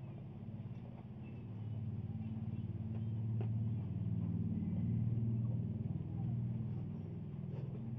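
Low engine rumble of a motor vehicle, swelling toward the middle and easing near the end.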